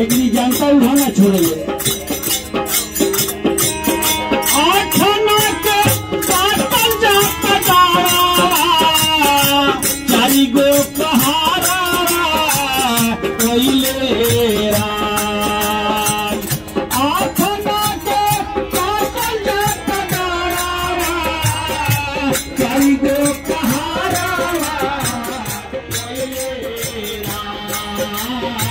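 Devotional folk singing in bhajan style: a melodic voice with a wavering pitch, carried over jingling, rattling hand percussion that keeps a steady beat.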